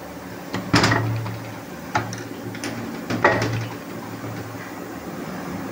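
Hard knocks and clanks of transmission parts being handled and turned over, three louder ones a little over a second apart with lighter clicks between, over a steady low hum.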